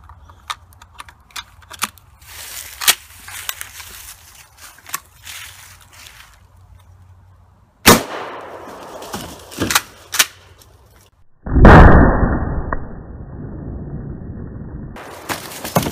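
Kel-Tec KSG 12-gauge pump shotgun: clicks of a shell being loaded and the gun being handled, then a single sharp birdshot shot about eight seconds in, followed by a couple of action clicks. A few seconds later comes a second loud, muffled boom that fades slowly over about three seconds.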